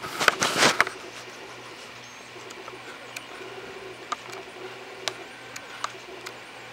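Miniature 3D printer's stepper motors running during a print: a steady pulsing hum with scattered sharp ticks as the print head and bed move. A brief loud rustle in the first second.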